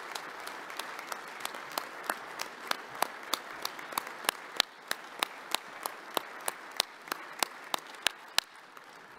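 Standing crowd applauding, with one nearby pair of hands clapping loudly and evenly, about three claps a second, over the general applause. The crowd's applause thins out about halfway through, and the close claps stop shortly before the end.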